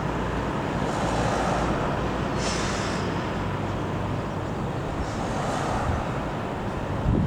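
Dassault Falcon 20's General Electric CF700 turbofan jet engines, a steady roar as the jet flies circuits. Near the end, a wind thump hits the microphone.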